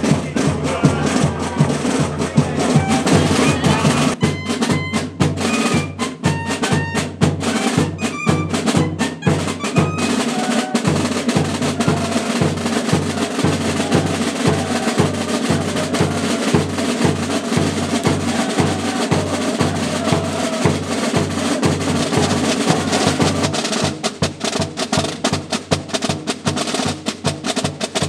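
Street band playing a march: snare and bass drums keep a steady beat about twice a second, with a tune played over it.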